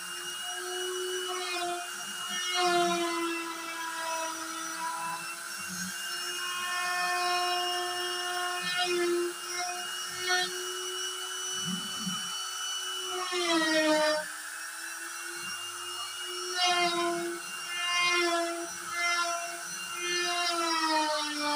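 Trim-router spindle of a DIY CNC router whining steadily as its bit carves an MDF panel. Its pitch sags briefly under load about two-thirds of the way through and drops lower near the end. Higher whining tones rise and fall in pitch as the machine's axis motors move the carriage.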